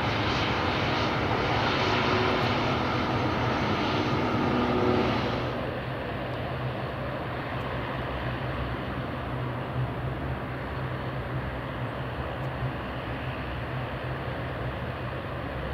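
Jet airliner engines: a steady rush with a low hum, louder for about the first five seconds, then changing abruptly to a quieter steady rush as a Japan Airlines Boeing 787 comes in to land.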